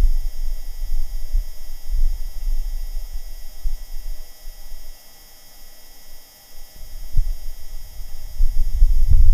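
Martian wind buffeting the Perseverance rover's microphone: a low, irregular rumble in gusts that dies down about five seconds in and picks up again near the end.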